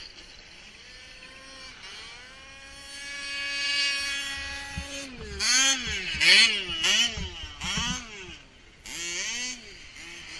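Radio-controlled car's motor whining, its pitch climbing steadily for a few seconds and then swinging quickly up and down as the throttle is worked on and off. Several short bursts of hiss come with the loudest, fastest moments about halfway through.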